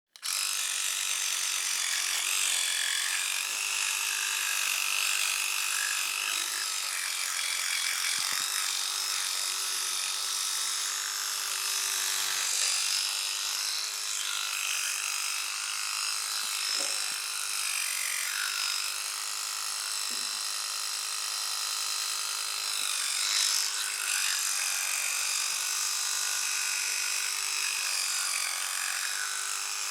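Electric toothbrush running: a steady motor hum whose pitch dips briefly now and then, under a shifting rasping buzz.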